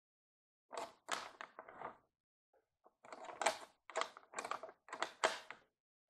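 O scale plastic model boxcar being handled on the track, clicking and clattering in short bursts as a hand rocks it and rolls it a little along the rails.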